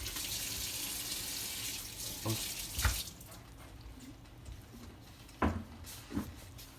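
Kitchen tap running into a sink, turned off about three seconds in, then a few short knocks and clinks.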